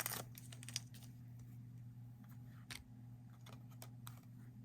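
Faint scattered clicks and rustles of trading cards being handled, over a steady low hum.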